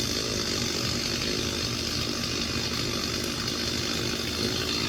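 Chainsaw running steadily at a constant speed, without revving up or down.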